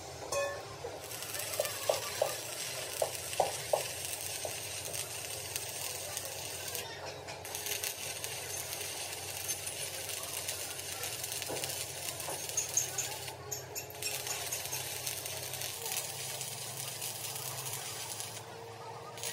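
Metal-repair workshop noise: a steady hissing crackle, with a run of light metallic clinks about two to four seconds in and a few more later.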